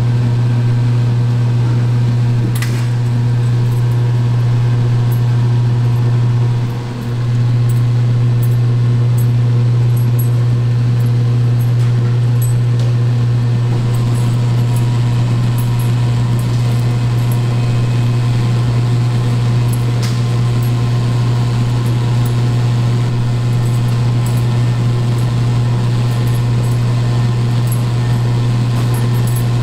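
Loud, steady low hum of kitchen machinery, with fainter steady tones above it; the hum dips briefly about a quarter of the way through. A couple of faint clicks sound over it.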